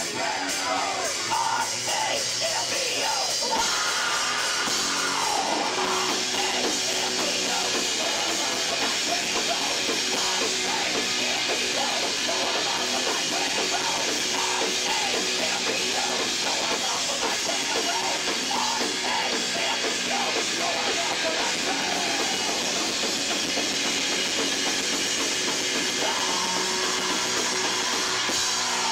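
Live punk-rock band playing, with electric guitar, drum kit and yelled vocals, heard from among the audience at a steady level.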